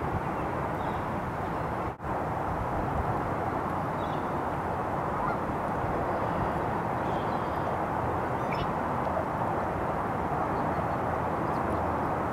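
Steady outdoor background noise with a few faint, short bird calls, broken by a brief dropout about two seconds in.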